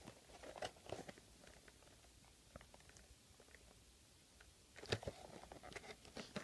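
Faint, scattered clicks and taps of a small toy being handled, with a louder cluster of clicks about five seconds in.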